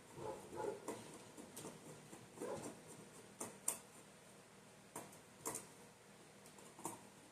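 Faint, scattered sharp clicks and light knocks of a plastic mounting bracket and screws being handled, with a few soft rustles between them.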